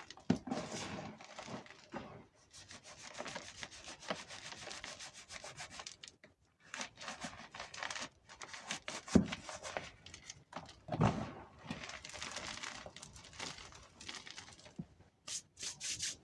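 Gym chalk crushed and crumbled between the fingers: a dense, crisp crunching in runs of a few seconds, with heavier crunches about nine and eleven seconds in and a few sharp clicks near the end.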